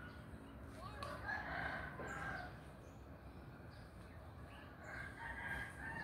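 A rooster crowing twice, once about a second in and again about five seconds in, each crow lasting about a second and a half.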